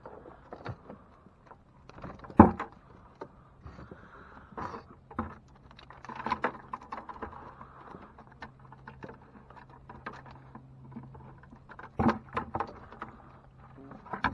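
Red wire crab trap rattling and knocking against the boat as it is handled and emptied, with one sharp knock about two and a half seconds in and a run of knocks near the end, over a low steady hum.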